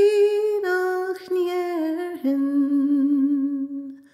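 A woman singing unaccompanied in Irish sean-nós style. She holds a long phrase that steps down through several notes to a low note with a slight waver, and breaks off near the end.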